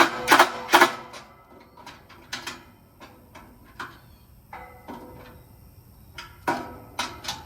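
Sharp clanks and knocks of hand tools and metal grill parts being worked, with three loud ones in the first second, scattered lighter clicks after and another run of knocks near the end.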